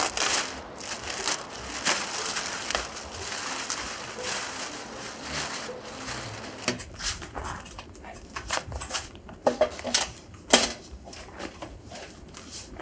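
Plastic tarpaulin rustling and crinkling as it is handled, followed by a run of sharp crackles and knocks, the loudest near the end.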